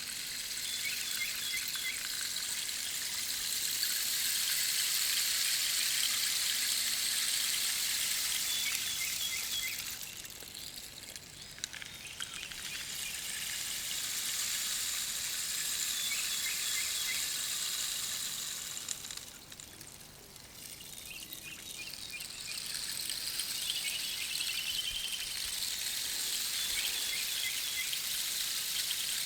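Rain stick being tipped, pebbles trickling down through the tube in a steady high hiss. It comes in three long swells, fading briefly about ten seconds in and again near twenty seconds as the stick is turned over.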